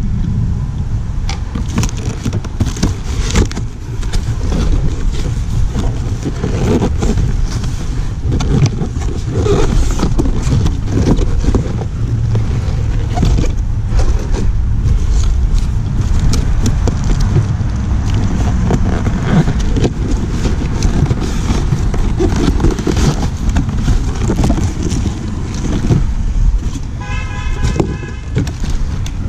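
Cardboard boxes and plastic-wrapped parts being handled and shuffled, with a steady low rumble of wind on the microphone.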